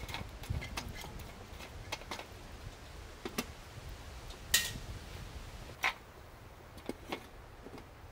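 Scattered clicks, taps and metal clinks of pots, a lid and utensils being handled on a small wood-burning camp stove. The loudest is a sharp, ringing metallic clink about four and a half seconds in, with another about a second later.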